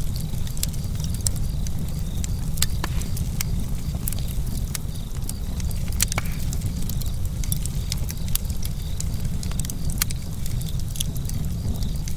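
Campfire burning: wood crackling with sharp, irregular pops over a steady low rumble.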